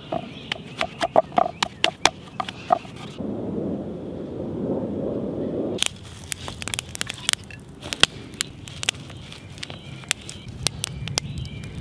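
Wood fire crackling and popping in a primitive stone oven, with many sharp pops from about halfway on. Before that come scattered clicks and a few seconds of duller rushing noise.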